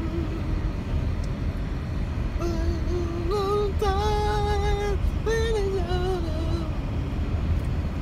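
A woman's voice sings a short melodic phrase with a long held note in the middle, over the steady low rumble of tyre and road noise inside a moving car.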